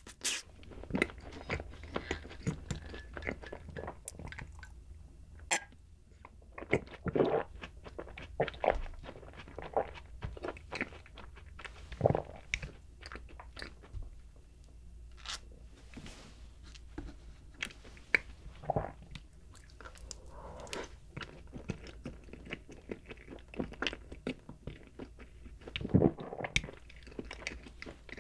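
Close-miked chewing and mouth sounds from eating soft chocolate cake: a long run of irregular short clicks and smacks.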